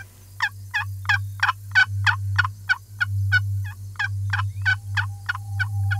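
A long, evenly spaced series of wild turkey yelps, about three a second, starting about half a second in and stopping near the end.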